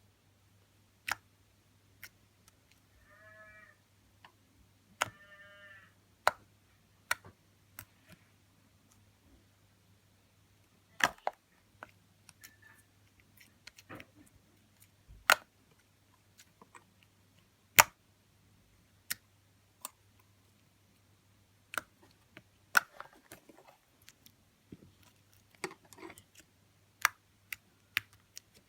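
Fluffy slime being squished and stretched, giving irregular sharp pops and clicks, with two short high squeaks a few seconds in and a faint steady hum underneath.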